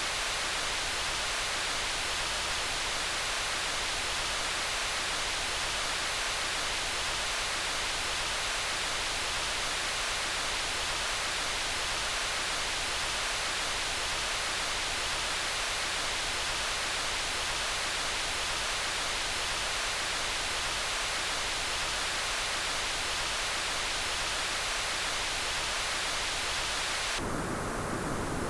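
Steady static-like noise hiss with no pattern or rhythm, brightest in the upper-middle range. Near the end it switches abruptly to a duller, lower noise.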